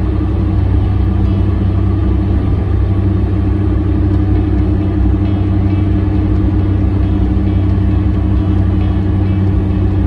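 Suzuki Jimny's engine humming at a steady pitch with tyre and road noise, heard from inside the cabin while cruising at constant speed.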